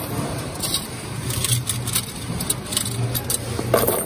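Coin-counting machine running with a steady low hum, while coins clatter and click through it.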